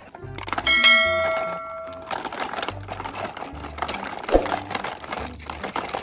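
A bright bell-like ding about a second in, ringing on and fading over about a second: a subscribe-button notification chime, over background music with a repeating bass line.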